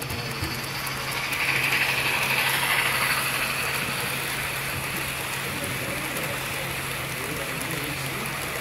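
HO scale Athearn Genesis Union Pacific FEF-3 4-8-4 model steam locomotive and its passenger cars running past on the track: a small mechanical whir and rattle of motor, gears and wheels, loudest a second or two in as the locomotive goes by, then steady as the cars follow.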